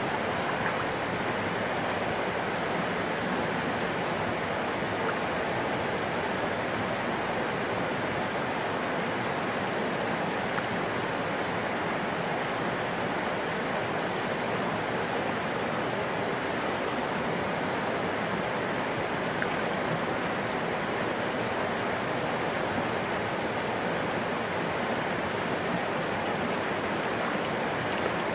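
Steady rush of flowing creek water, an even noise that does not change.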